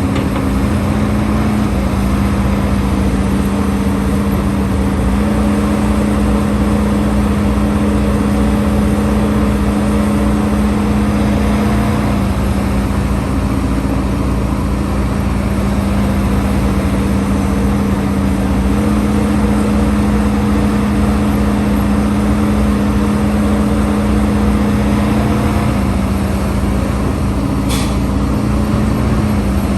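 HIDROMEK HMK230LC excavator's diesel engine running steadily under working load, its pitch stepping slightly up and down a few times. A brief sharp click near the end.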